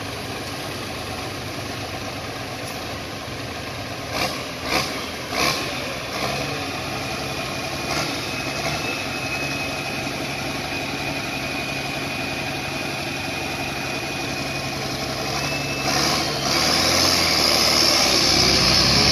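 Pulling tractor's engine idling while hitched to the sled, with a few sharp knocks about four to five seconds in and a steady high whine from about eight seconds in. Near the end the engine revs up louder as the tractor starts to pull.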